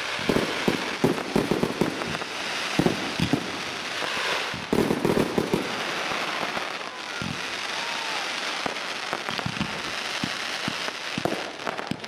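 Aerial fireworks display: a rapid run of shell bursts and launch bangs over a continuous dense crackle, the bangs heaviest around five seconds in and thinning out later while the crackle carries on.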